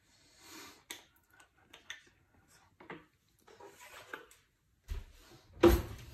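Art supplies handled on a wooden tabletop: light rustles and small clicks, then a solid knock near the end as something is set down on the wood.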